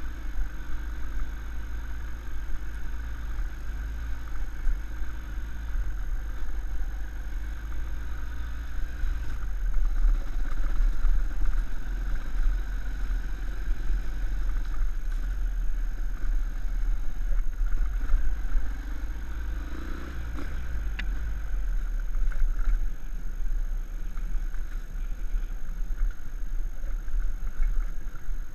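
Small motorcycle engine running as the bike rides along a rough dirt trail, the engine note rising and easing a little with the throttle, over a heavy low rumble.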